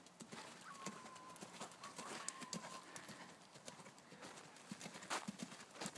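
Faint hoofbeats of a horse cantering on a soft sand arena, with one sharper knock about five seconds in.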